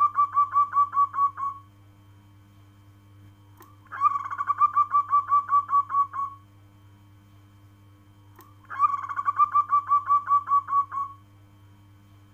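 Zebra dove (local perkutut) cooing: a rapid run of about a dozen short cooing notes lasting a couple of seconds, repeated about every four and a half seconds, three phrases in all, the first already under way. A faint steady low hum runs beneath.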